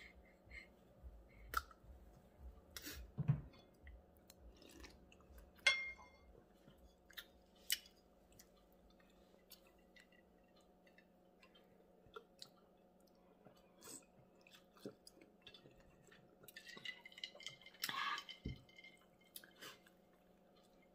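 Quiet chewing, with scattered soft mouth clicks and smacks over a faint steady hum.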